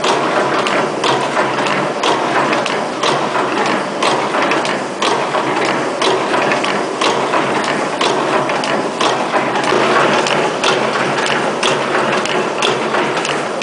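SKY-201A automatic rope tipping machine running: a steady mechanical clatter with a sharp clack about twice a second as its mechanism cycles through feeding the cord and forming the film tips.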